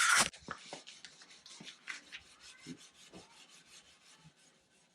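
Steel wool scrubbing a chrome bumper with chrome polish in quick repeated rasping strokes, lifting off old grime. A louder scrape comes right at the start, then the strokes grow fainter.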